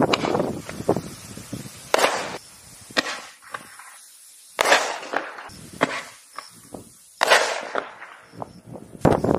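A series of sharp bangs and pops at irregular intervals, several of them with a short echoing tail, and smaller crackles in between.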